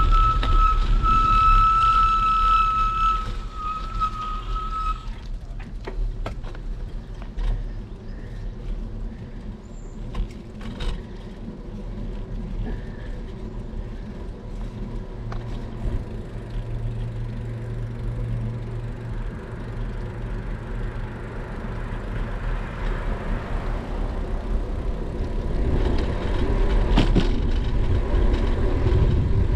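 Wind buffeting a helmet or handlebar action camera's microphone, with tyre and road noise from a bicycle in motion. For the first five seconds a steady high squeal runs over it, then cuts off.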